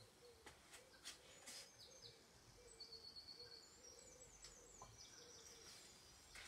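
Faint garden birdsong: a low cooing call repeating about twice a second, with higher chirps about halfway through, and a few light knocks.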